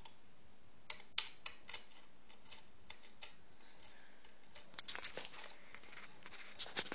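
Scattered light metallic clicks and taps of Allen keys on the wheel axle bolts as a scooter wheel is undone, sparse at first and coming thicker about five seconds in.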